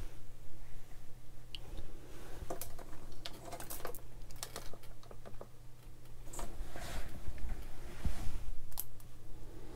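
Small plastic model-kit parts being handled and set down on a cutting mat: scattered light clicks and taps at irregular intervals, over a faint steady low hum.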